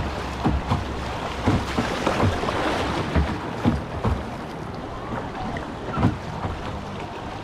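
Water splashing around a small boat on a river, with wind noise on the microphone. Short splashes or knocks come irregularly every half second to a second over a steady wash of noise.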